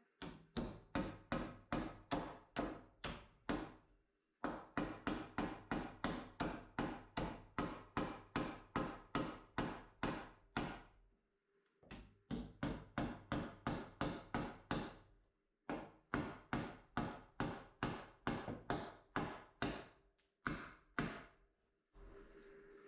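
Hammer blows at a steady pace, about two to three a second, in several runs broken by short pauses.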